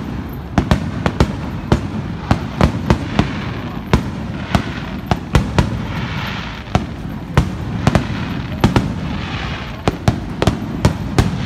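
Aerial fireworks display: a fast, uneven run of sharp bangs from bursting shells. Spells of crackling glitter come in about the middle and again near the end.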